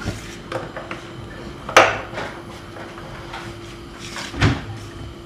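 A metal spoon knocking against the side of a metal cooking pot while stirring raw cut vegetables with oil and spices. There is a sharp knock just under two seconds in and a duller thump near the end, over a faint steady hum.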